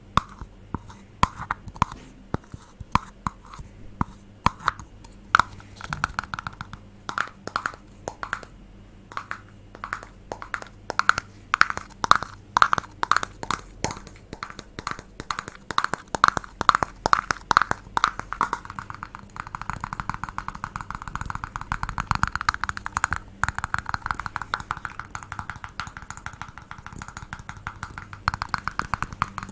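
ASMR tapping on a hard object: crisp taps, each with a brief ring. They are spaced out at first, grow quicker, and turn into rapid continuous tapping a little past the middle.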